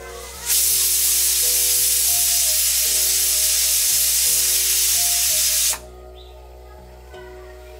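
Aluminium pressure cooker's weight valve blowing off steam in one loud, even hiss of about five seconds that starts and stops abruptly. This is one 'whistle', the sign that the cooker has come up to pressure.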